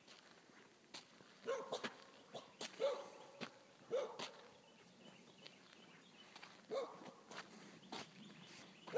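A dog giving about four short, faint barks spread over several seconds, with light clicks and taps in between.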